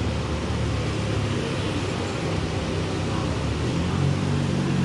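Steady traffic-like background noise with a constant low engine hum.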